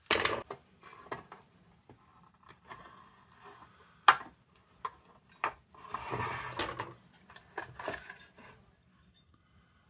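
Metal lantern parts being handled on a workbench: several sharp clinks and knocks, the loudest about four seconds in, and a rougher scraping rub around six to seven seconds.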